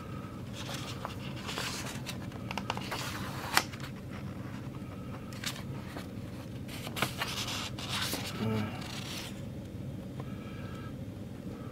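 Paper and packaging being handled while a box's contents are unpacked: bursts of rustling and scraping with light clicks, over a steady low hum.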